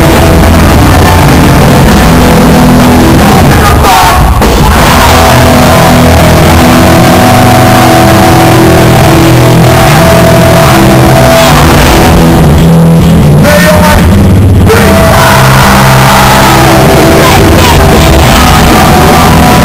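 Hardcore punk band playing live, very loud and distorted: heavy guitars, bass and drums with shouted vocals. The band breaks off briefly about four seconds in and again twice past the middle before crashing back in.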